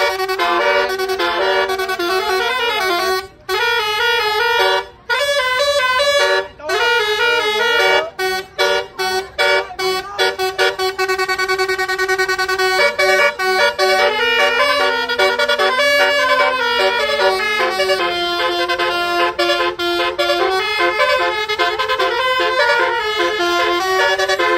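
Tour bus's multi-tone 'telolet' air horn playing a melody of held chords that step in pitch, played in short bursts at first and then as longer runs.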